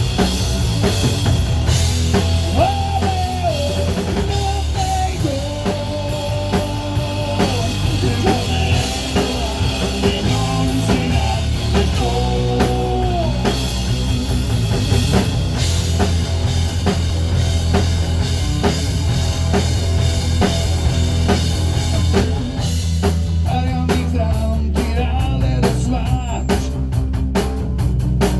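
Rock band music with drum kit, bass and guitar: a melody line of held, sliding notes over a steady bass in the first half, and the drums getting busier near the end.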